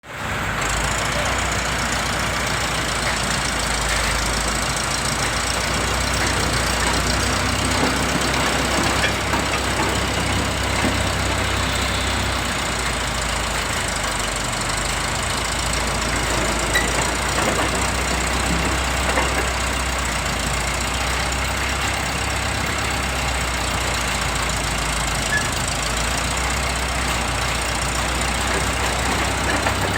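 Diesel engine of a D4 crawler bulldozer running steadily, a constant low hum under a dense mechanical clatter.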